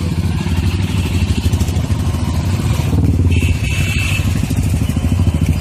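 Motorcycle engines running loud and close as bikes ride past one after another, with a rapid pulsing exhaust beat.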